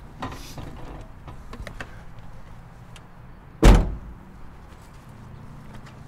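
A car door being shut: one heavy thud about three and a half seconds in, with soft rustling and small knocks of handling before it.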